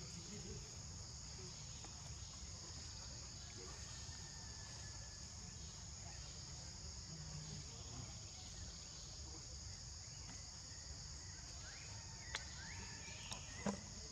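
Steady high-pitched drone of insects in tropical forest, over a low rumble. Near the end come two sharp clicks and a few short rising chirps.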